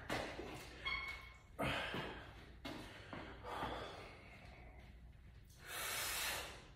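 A man breathing hard in sharp, forceful breaths as he braces under a loaded barbell for front squats. A short metallic ring about a second in as the bar is taken from the rack, and one long, hard exhale near the end.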